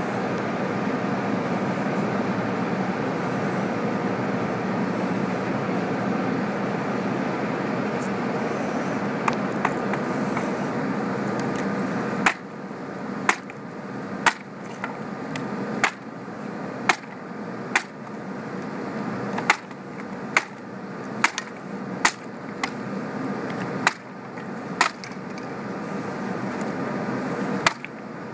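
A steady rushing background noise, then from about twelve seconds in a dozen or so sharp wooden cracks, roughly one a second with a few pauses: a long-handled striking tool hitting and splintering the boards of a wooden pallet.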